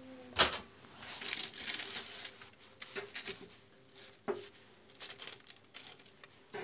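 A metal fork prodding grilled fish on a parchment-lined oven tray, with baking paper crinkling and scattered clicks and taps; the sharpest click is about half a second in. A faint steady hum runs underneath.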